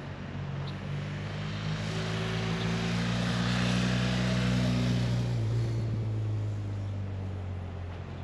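A passing motor: a steady engine drone with a clear pitch that swells to its loudest in the middle, then drops in pitch about five seconds in and fades as it moves away.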